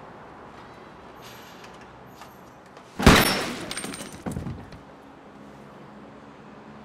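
A single loud, sharp pistol shot about three seconds in, ringing away over a second or so, followed about a second later by a second, weaker bang.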